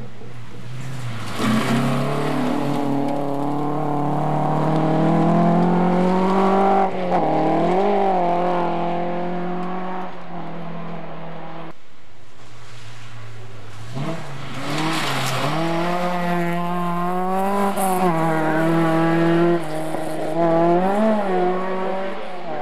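Historic rally cars driven flat out on a gravel special stage: a first car's engine climbs in pitch and changes gear as it comes through, then after a short lull a second car comes through revving hard, its pitch dropping and climbing again at several gear changes.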